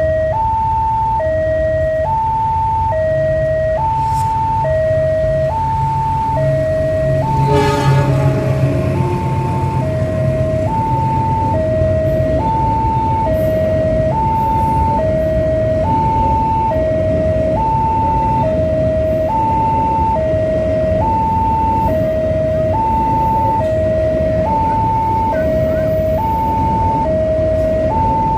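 Railway level-crossing warning siren sounding a steady two-tone alarm, high and low tones alternating about every second, with a steady low rumble underneath. A brief louder burst comes about eight seconds in.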